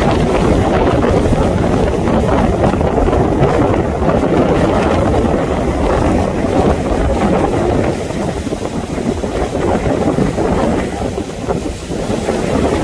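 Strong gale-force wind buffeting the phone's microphone over heavy surf, with storm waves on a large lake breaking and spraying against a concrete breakwall and concrete blocks. The noise is loud and steady, easing slightly about ten seconds in.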